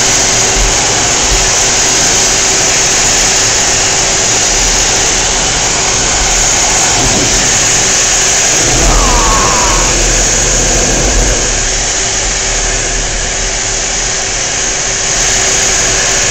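Steady, loud cockpit noise inside a Blue Angels F/A-18 Hornet in flight: jet engine and airflow noise with a steady hum beneath it. About nine seconds in the low rumble briefly swells as the jet rolls and pulls through a manoeuvre.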